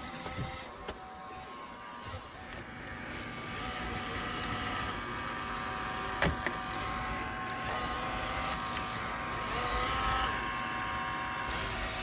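iRobot Roomba j7 robot vacuum driving on a mapping run with its main brushes off: a steady whirring whine from its drive motors and spinning side brush, getting louder from about four seconds in as it comes nearer, with one sharp click about six seconds in.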